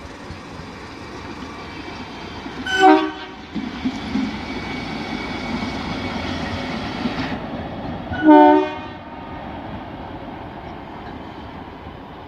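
WDM-3A diesel-electric locomotive, its 16-cylinder ALCO engine running, passing close by running light. Its multi-tone horn sounds two short blasts, about three seconds in and again about eight seconds in. Between the blasts, the engine and the wheels on the rails grow louder while it goes by.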